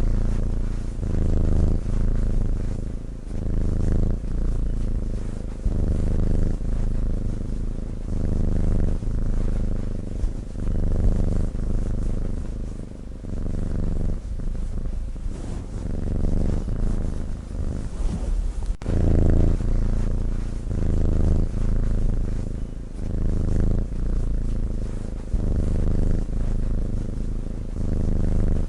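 Sleeping cat purring steadily, the purr swelling and easing about once a second as it breathes in and out.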